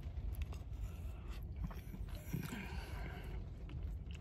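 A person chewing a mouthful of soft rice and chicken, with small wet mouth clicks and a brief louder patch of chewing about two seconds in, over a steady low hum in a car cabin.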